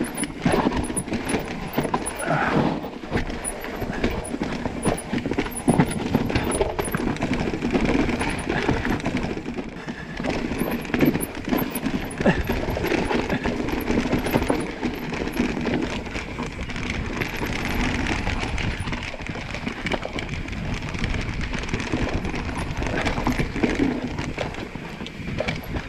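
Mountain bike riding down a rough dirt trail: knobbly tyres rolling and skidding on dirt, with the chain and frame rattling over bumps and roots.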